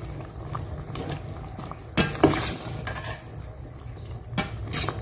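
Soup simmering in a stainless steel pot while a metal ladle tips tomato wedges in and stirs, knocking against the pot. The loudest knocks come about two seconds in, with a couple more near the end.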